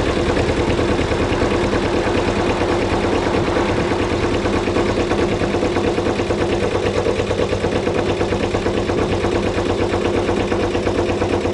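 A 1987 Kawasaki GPX250R (Ninja 250) parallel-twin engine idles steadily with a fast, even exhaust beat while it warms up after a cold start.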